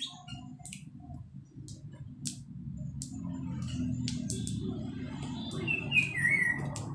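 Yardlong beans (sitaw) being snapped into pieces by hand, a scatter of crisp, irregular snaps. Near the end a bird gives a few short chirps.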